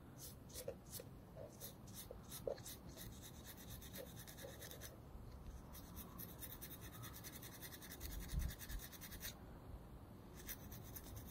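Emery cloth wet with WD-40 rubbed lightly back and forth on a motorcycle rear brake caliper piston to clean grime off it: faint quick scratching strokes, about four a second at first and faster about halfway through. A soft dull bump about eight seconds in.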